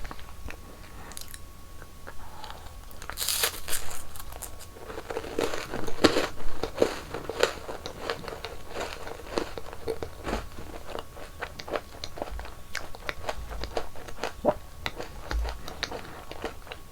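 Close-miked crunching and chewing of sweet snacks, with loud crisp bites about three seconds in and again around six seconds, then steady crunchy chewing.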